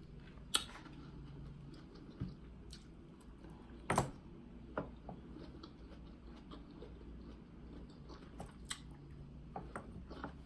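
Sounds of eating soft melon pieces: scattered sharp clicks and small taps, the loudest about four seconds in, over a low steady hum.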